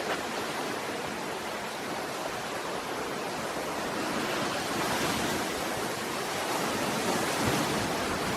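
Storm-driven lake waves breaking and washing ashore in a steady rushing roar of surf, swelling slightly about halfway through.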